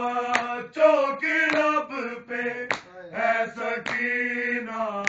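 A group of men recites an Urdu noha, singing in long held lines. A sharp slap of chest-beating (matam) falls about once a second, keeping the beat.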